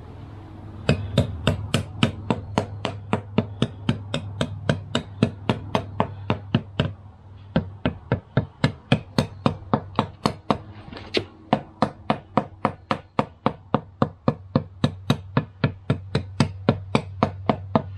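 Rapid, even knocking, about three strikes a second, with a short break around seven seconds in, over a low steady hum.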